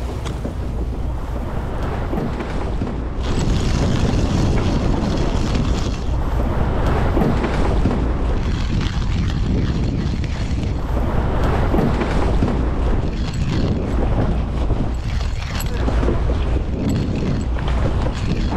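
Strong wind buffeting the microphone over open sea, with rushing, splashing water around a boat. The noise swells and eases every couple of seconds and grows louder about three seconds in.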